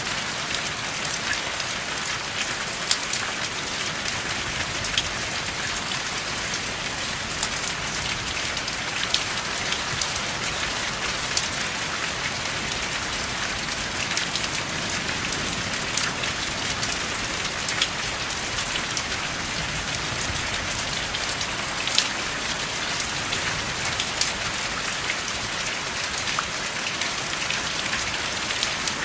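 Steady rain falling, an even hiss with scattered sharp drips and patters standing out now and then.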